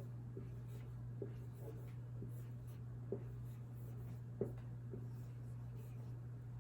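Handwriting sounds: a pen or marker scratching and tapping lightly on the writing surface in short, scattered strokes, over a steady low hum.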